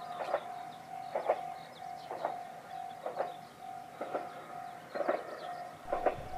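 Japanese level-crossing warning bell ringing at a steady beat of about one strike a second over a constant tone. This is the alarm that a train is approaching the crossing.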